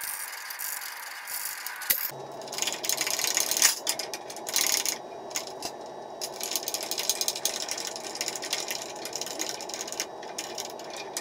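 Metal clicking and rattling as flat steel bar stock is rolled through a homemade hand-cranked roller bender, the roller shaft turned with a cross wrench. A steady hum joins it about two seconds in.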